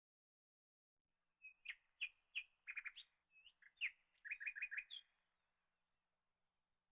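A small bird chirping: a short string of sharp, downward-sweeping calls and a quick trill, starting about a second and a half in and stopping after about four seconds.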